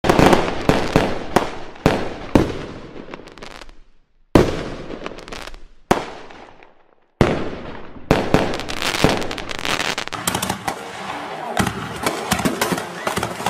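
Firework shells bursting with sharp bangs a second or two apart, each trailing off in a fading crackle. From about eight seconds in, a dense run of rapid pops and crackling from fireworks going off on the ground.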